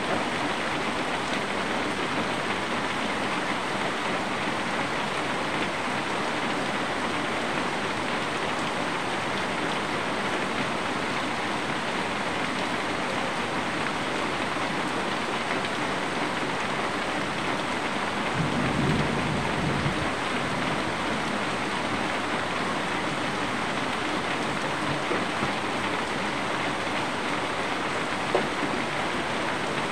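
Steady rain falling, an even hiss. About two-thirds of the way in, a brief low rumble rises under it.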